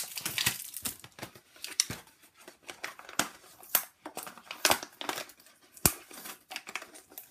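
Packaging being handled: a green packaging sleeve crinkling and rustling as it is pulled out of a cardboard box, with scattered taps and scrapes of cardboard. The crinkling is densest in the first second, then comes in shorter bursts, and one sharp tap about six seconds in is the loudest.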